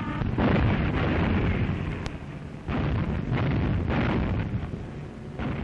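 A series of heavy air-raid explosions, about five blasts, each trailing off in a rumble, the first and longest just after the start. Heard on an old, noisy optical-film sound track.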